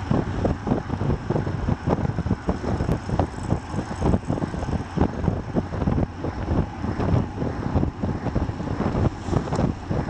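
Wind buffeting the microphone of a bike-mounted camera on a road bike moving at about 40 km/h: a loud, gusty, uneven rumble, with the hum of road tyres on asphalt underneath.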